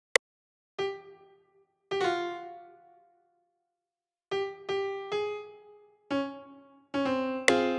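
Electric-piano-style keyboard notes from FL Studio's Purity plugin, played one at a time as they are placed in the piano roll, each struck and dying away; a run of three repeats of one note comes midway, and a fuller chord sounds near the end. A short sharp click comes just after the start.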